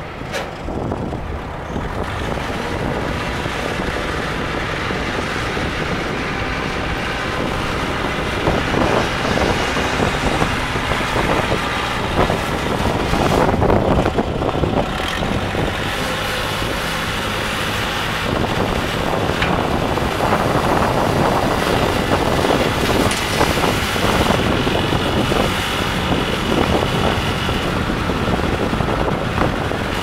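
A 1978 Case 580C loader backhoe's engine running as the machine drives and turns on gravel. It gets louder about a third of the way in, and a thin high whine sits over it through much of the second half while the loader bucket is raised.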